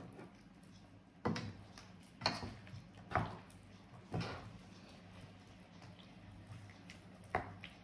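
Wooden spoon and spatula stirring meat in a cream sauce in a frying pan, knocking against the pan about once a second four times, then once more near the end, over a low steady hum.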